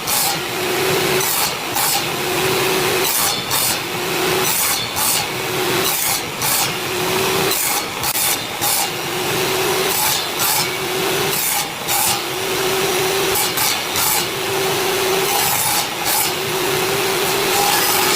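Hand saw cutting through wood in steady back-and-forth strokes, about one stroke a second, each stroke with a rasping, slightly ringing tone.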